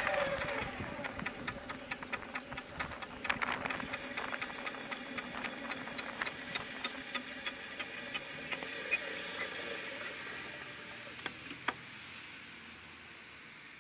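Regular ticking from a bicycle's rear wheel, a few ticks a second over light tyre noise, slowing and fading as the bike rolls to a stop.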